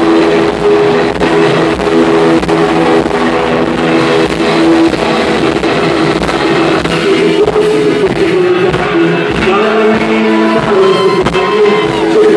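Live rock band playing loud: singing over electric guitar and a steady drumbeat, recorded from within the crowd.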